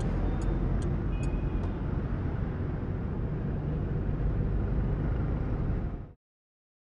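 Steady low rumble inside a moving car's cabin, with four light ticks in the first two seconds. It cuts off abruptly about six seconds in, leaving dead silence.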